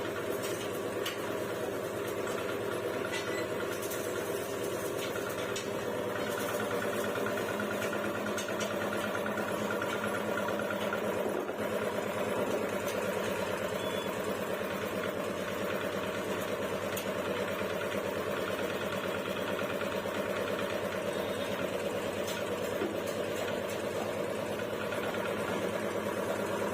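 3 hp reciprocating piston air compressor running steadily, a constant mechanical hum with a fast, even rattle of the pump.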